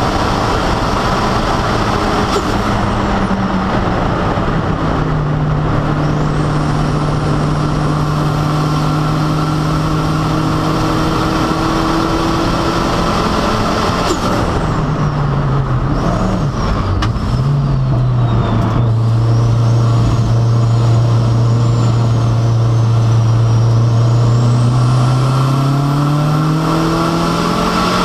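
Toyota MR2 SW20's turbocharged four-cylinder engine with a Garrett 3582 turbo, heard from inside the cabin while racing. The engine note holds high, then drops and runs steady, dips and wavers about halfway through as the car slows, runs low and steady, and climbs in pitch again near the end.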